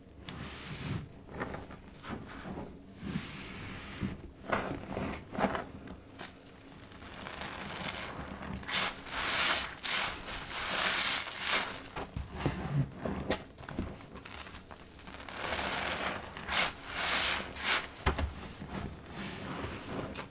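Gloved hands squeezing and kneading new sponges soaked with liquid soap in a tub of thick foam: wet squelching in repeated uneven bursts, with longer stretches of hissing foam about halfway through and again near the end.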